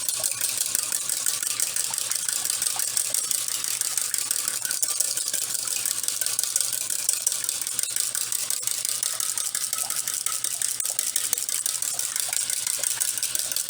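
Wire whisk beating an aloe, oil and honey mixture in a bowl: a fast, continuous clicking rattle of the wire tines against the bowl.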